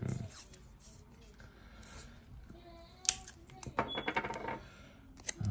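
Quiet handling of a small electric motor and its wires, then a sharp click and a short crackling, squeaky rip of electrical tape being pulled off the roll about four seconds in, with a few more clicks after it.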